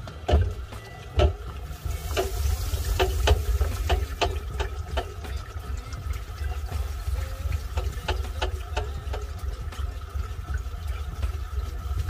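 Bosch WOI705B0IN top-load washing machine in its wash cycle, churning towels in water: steady sloshing and splashing over a low rumble, with two louder splashes in the first second and a half.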